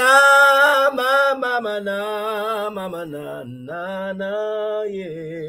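A man's voice singing long, held notes in a slow worship chant. The pitch sinks in steps, dips briefly about three and a half seconds in, and ends on a wavering vibrato.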